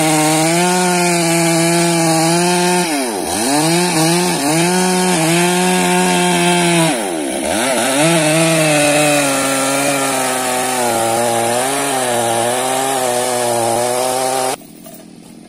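Two-stroke chainsaw running at high revs. Its speed drops sharply and picks up again twice, about three and seven seconds in, and the sound cuts off suddenly near the end.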